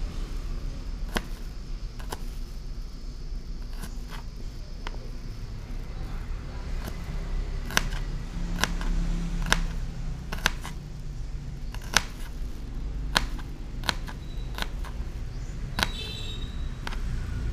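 Small kitchen knife slicing shallots on a plastic cutting board: separate sharp clicks as the blade meets the board, about one a second and coming closer together in the second half, over a steady low rumble.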